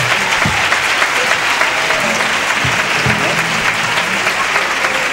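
A large theatre audience applauding steadily and loudly, a dense mass of hand claps.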